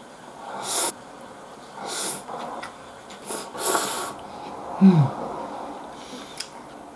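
A person slurping cold noodles (hiyashi chuka), about four quick airy slurps over the first four seconds. About five seconds in comes a short, low voiced grunt that falls in pitch.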